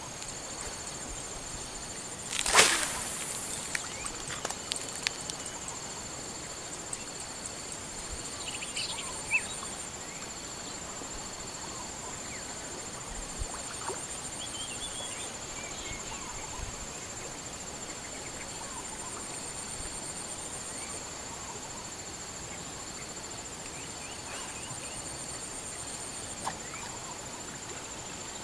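Lakeside ambience: insects drone steadily in high thin tones, some pulsing on and off, with a few short bird chirps. About two and a half seconds in comes one sudden loud sound that fades within half a second, followed by a few light clicks.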